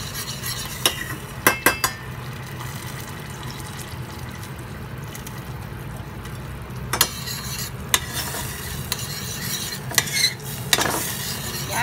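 Metal spoon stirring sauce in a stainless steel pot, clinking sharply against the pot several times, with a quick cluster of clinks near the start. A steady low hum runs underneath.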